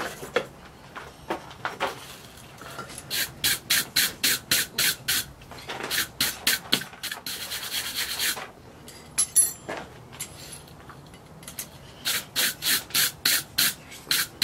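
Hand wire brush scrubbing a hot forged steel bottle opener with quick back-and-forth strokes, about four a second, in three spells with short pauses between: scale is being brushed off the heated piece before it is finished with oil.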